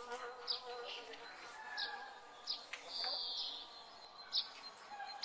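Small birds chirping: short, sharp high calls repeating about once a second, with a longer trill about three seconds in, over faint outdoor background noise.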